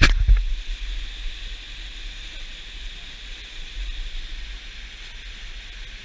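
Steady rushing of a waterfall, with a few sharp knocks and a low rumble in the first half second from the handheld camera being bumped.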